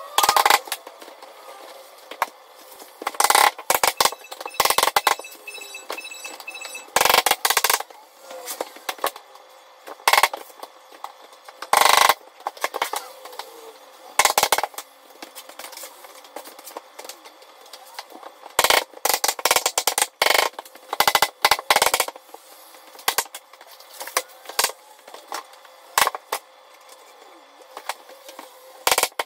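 Sped-up audio of vinyl plank flooring being laid: quick, irregular sharp knocks as the planks are set down and tapped into place with a mallet, over a busy, chattering background.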